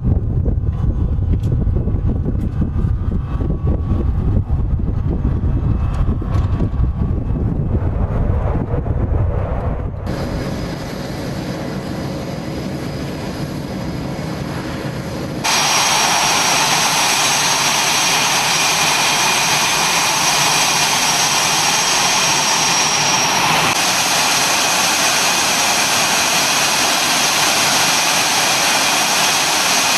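Jet fighter engines, F/A-18s: a low, crackling rumble for about ten seconds, a quieter stretch after an abrupt change, then a sudden switch to a loud, steady, high-pitched jet whine with a roar underneath.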